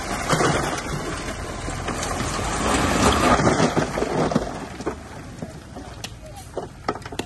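Bulldozer working: a steady low engine hum under a noisy rush of dirt and stone being pushed. It is loudest in the first half and eases off, with a few sharp knocks near the end.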